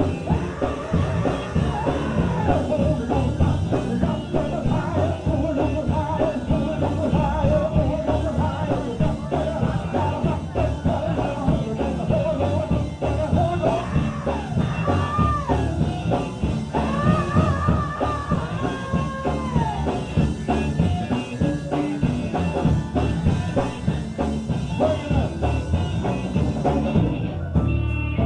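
Live gospel singing with a band and drum kit: a lead voice holds long, wavering notes over the accompaniment.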